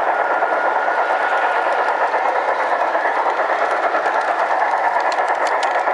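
Large-scale LGB model train rolling along its metal track, a steady, even rattle of wheels on rail. A few short clicks come near the end.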